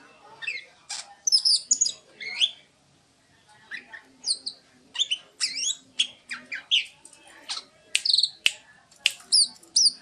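Oriental magpie-robin (kacer) singing: a varied run of short, clear whistled notes and chattering phrases that glide up and down, with a pause of about a second around three seconds in.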